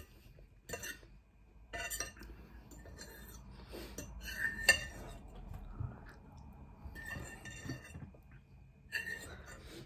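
Metal knife and fork clinking and scraping against a plate while food is cut and scooped up, in a string of short clinks with the sharpest one about halfway through.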